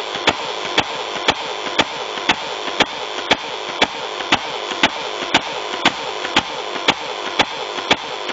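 Airsoft electric gun (AEG) firing on full auto, slowed down: a steady run of sharp clicks about two a second over a constant whirring hum from the motor and gearbox.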